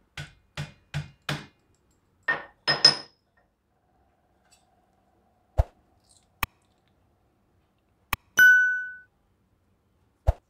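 A metal cup knocks a green gunda (glue berry) against a metal plate to crack it open for de-seeding: four quick knocks, then two more that ring. After that come a few sharp clicks of a knife against the plate, and about eight seconds in, one clear ringing clink of metal on metal.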